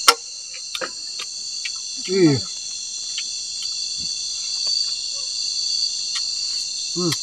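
Steady high-pitched chorus of night insects trilling without a break, with a few sharp clinks of spoons against a cooking pot and plates, the loudest just at the start.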